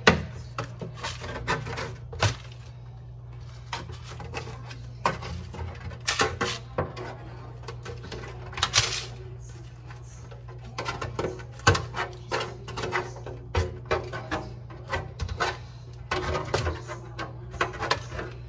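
Metal slotted spatula scraping and tapping against a metal baking pan, working crumbly cornbread loose, in irregular clicks and scrapes that come thickest in the second half.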